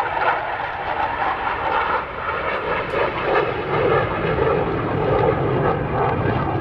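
Panavia Tornado's twin Turbo-Union RB199 turbofan engines running loud and continuous during a hard banking turn and climb-out with afterburners lit. The sound grows deeper and heavier about halfway through.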